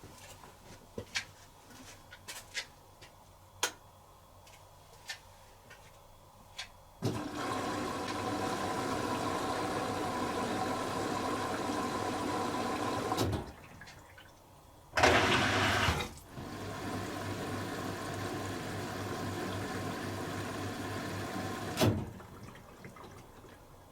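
Beko WTB841R2W washing machine taking in water: a few clicks, then the inlet valve opens and water rushes in steadily. About halfway through it breaks off briefly, comes back with a short, louder gush, runs steadily again and cuts off with a click near the end.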